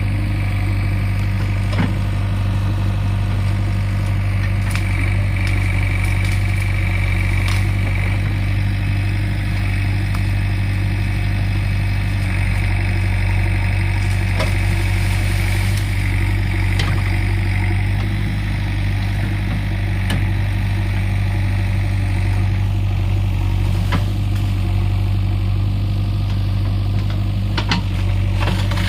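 Diesel engine of a JCB 3DX backhoe loader running steadily at an even, low pitch, with a few faint clicks and knocks over it.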